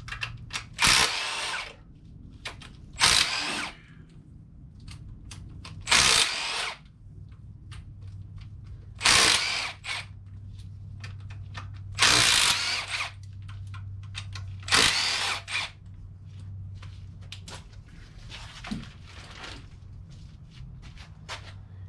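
Cordless impact wrench spinning out pre-loosened engine bolts in short bursts, about six times, with small clicks and clatter between them.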